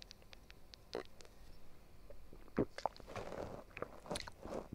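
A man taking a sip of water: faint mouth clicks, sipping and swallowing noises, scattered through the pause.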